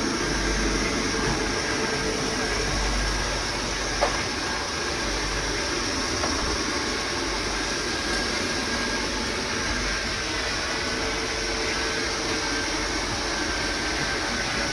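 Xiaomi Mi Robot Vacuum-Mop Essential running, a steady whir from its suction fan, with a single short click about four seconds in.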